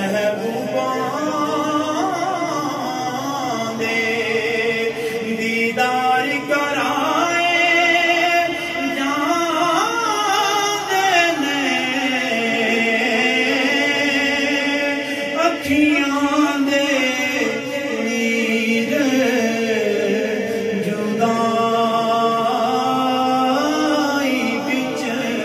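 A man's voice chanting in a drawn-out melody through a microphone and loudspeakers, the melodic recitation of devotional verse at a mawlid gathering.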